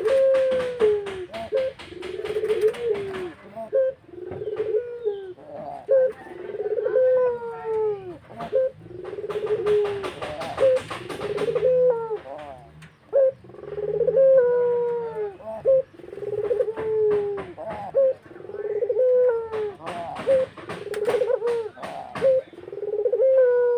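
Black-collared dove cooing over and over, low coos coming about once every second and a bit. Three spells of rapid ticking are heard alongside.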